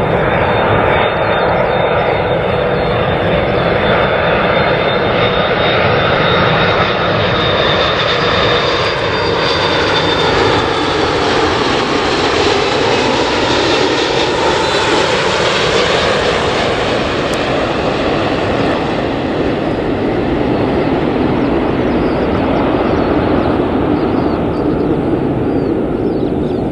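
Qantas Airbus A330-300 passing low overhead on landing approach: a steady, loud jet-engine roar with whining tones that slide down and then back up in pitch about halfway through.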